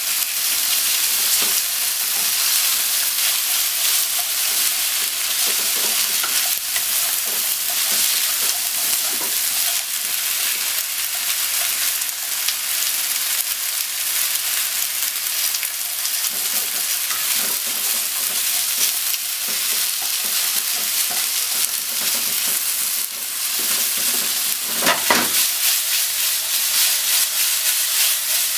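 Sliced pork and onion sizzling steadily in a hot frying pan over a gas flame, stirred with wooden chopsticks, with scattered light taps and scrapes on the pan that grow louder about 25 seconds in.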